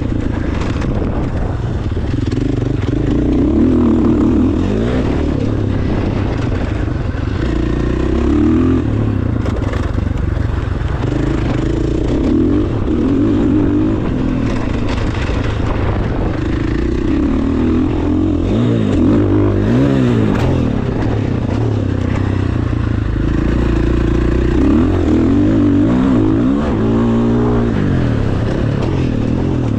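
KTM 300 SX single-cylinder two-stroke dirt-bike engine being ridden, revving up and down over and over as the throttle is opened and closed, its pitch rising and falling continuously.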